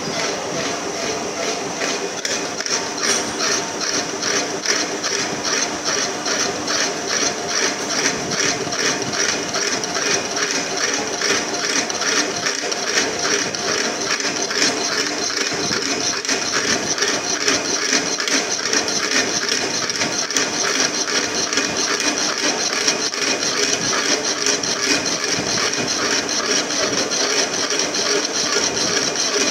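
Large metal lathe running: steady machine noise with a fast, even ticking throughout.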